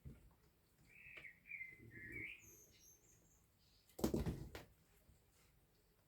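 Small handling noises at a workbench: a brief wavering squeak about a second in, then a short clatter about four seconds in, the loudest moment.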